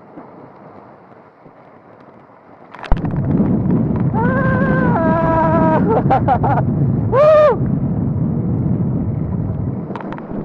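Mountain bike riding down a rough trail. A sharp knock about three seconds in starts loud, rough wind-and-tyre rumble on the mic. In the middle come a few high-pitched squeals: steady tones that jump in pitch, then one that rises and falls.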